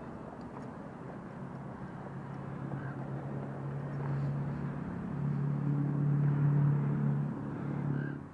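A motor engine drones steadily with a low hum, growing louder over the last few seconds, then cuts off abruptly.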